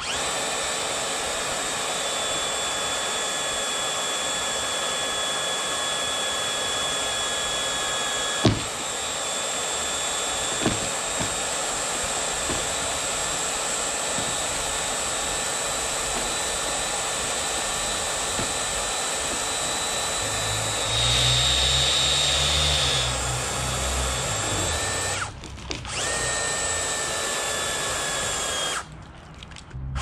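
A cordless electric power tool runs steadily with a high whine. It labours under heavier load for a couple of seconds past the twenty-second mark and cuts out briefly twice near the end. There are sharp knocks about eight and ten seconds in.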